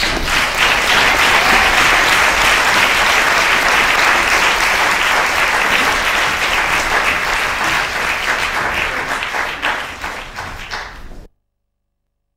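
Audience applauding: dense, steady clapping that eases slightly, then cuts off abruptly about eleven seconds in.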